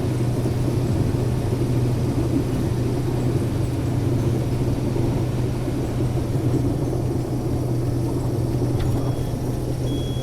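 Case IH 2388 combine running steadily while harvesting corn: a constant low engine and machinery drone without breaks or changes.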